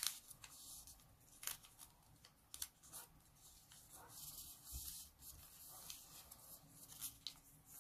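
Faint rustling and rubbing of a strip of origami paper as it is folded in half lengthwise and the crease is pressed flat with the fingers, with scattered soft paper clicks.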